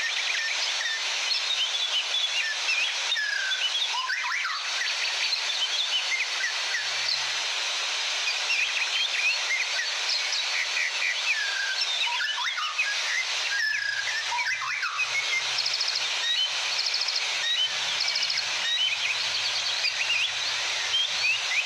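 Many birds singing and chirping at once, short quick calls overlapping, over the steady rushing of falling water.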